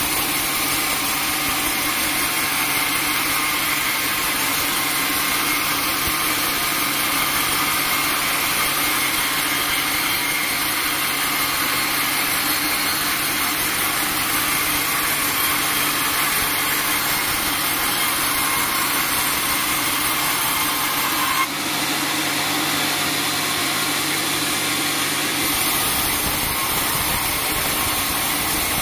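Vertical band sawmill blade cutting lengthwise through a teak log, a steady, continuous sawing noise over the running machine.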